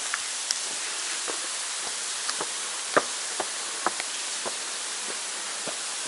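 Steady rush of a waterfall heard from behind the falling water, with about a dozen irregular sharp taps of water drops splashing close by, the loudest about three seconds in.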